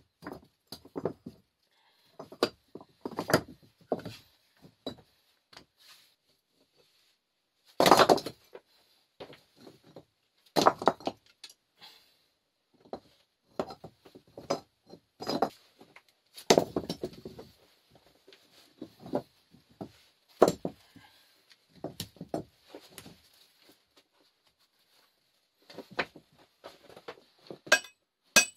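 Rocks being handled and set down against other stone, giving irregular knocks and clunks, with sharper stone-on-stone clinks near the end.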